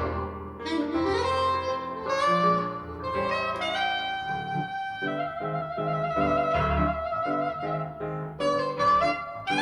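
Soprano saxophone and piano playing a jazz ballad together: the saxophone holds a sustained melody line while the piano accompanies with chords, which settle into repeated even strikes about halfway through.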